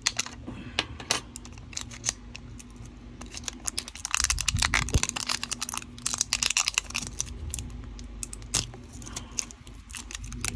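Plastic shrink-wrap seal crinkling and tearing as it is picked at with tweezers and peeled off a small plastic jar, in an uneven run of crackles and scratches.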